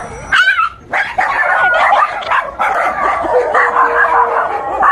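A dog barking and yipping over and over, with a short break about a second in.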